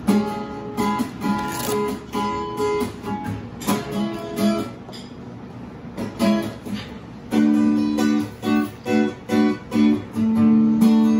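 Acoustic guitar played live, chords strummed and left to ring, with a brief lull midway. After the lull it settles into a quick, even strumming rhythm.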